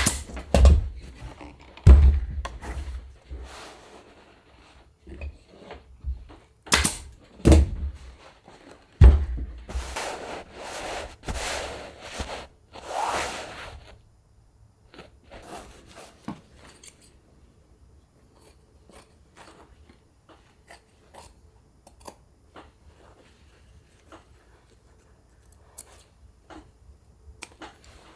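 Hand upholstery work on a wooden chair: several sharp knocks and thumps, with rustling and scraping of fabric and material in the first half, then only sparse light clicks and taps.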